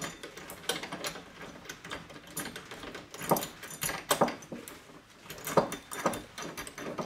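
Irregular metallic clicks and clinks of a 22 mm socket on a 3/8-inch extension being worked up onto a lift-kit spacer bolt and turned by hand, with a few louder knocks of metal on metal.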